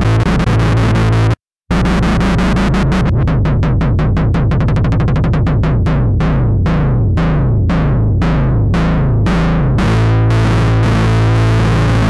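Cherry Audio Miniverse software synthesizer, an emulation of the Minimoog, playing its 'Chugger' bass preset: a line of rapidly repeated low bass notes, each with a bright attack that quickly dulls. It breaks off briefly just over a second in, the notes spread out over the middle, and it settles on a held low note near the end before stopping.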